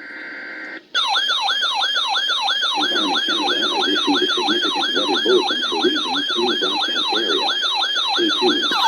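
A RadioShack weather alert radio sounding its electronic siren alarm for an incoming severe weather alert: a brief steady tone, then a fast warble of repeated falling sweeps, a little under three a second.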